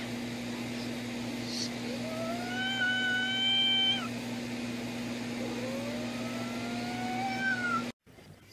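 A cat giving two long, drawn-out meows, each about two seconds and rising slowly in pitch, over a steady low hum.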